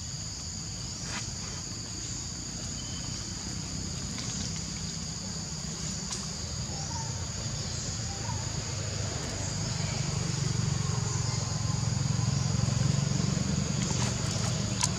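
Steady high-pitched insect chorus. A low rumble builds underneath from about ten seconds in.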